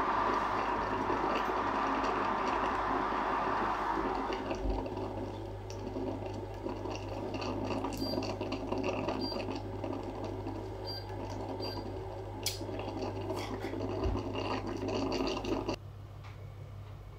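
Hoover Automix 8924 food mixer running steadily; about four seconds in its sound changes and gets quieter, a few light clicks come through, and it switches off shortly before the end.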